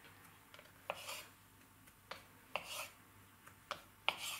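Kitchen knife cutting a rope of soft dough into pieces on a wooden cutting board: five sharp taps of the blade on the board, about one a second, several followed by a brief soft rustle.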